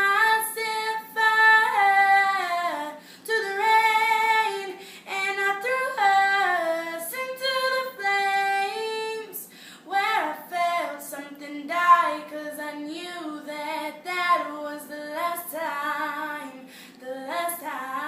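A female voice singing solo, with held notes and notes that slide up and down, and no clear words.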